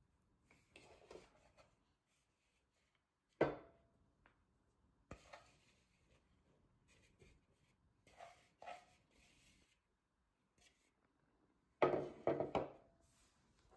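Hands working shaggy bread dough in a bowl and turning it out onto a wooden table: soft rubbing and squishing of flour and dough, broken by a few thuds, the loudest cluster near the end.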